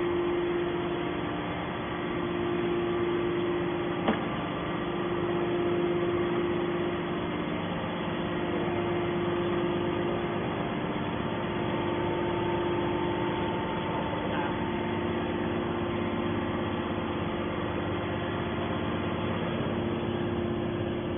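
Hydraulic scrap metal baler running: a steady mechanical hum with a constant tone from its motor and hydraulic pump, and a single sharp knock about four seconds in.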